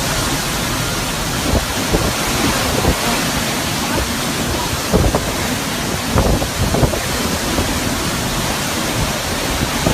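Storm wind and rain: a loud, steady rush of noise buffeting the microphone, with scattered short knocks and thumps.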